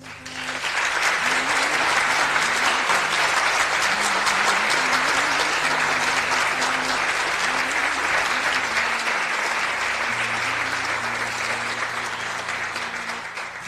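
A crowd applauding. The clapping swells up within the first second, holds steady, and thins out slightly toward the end.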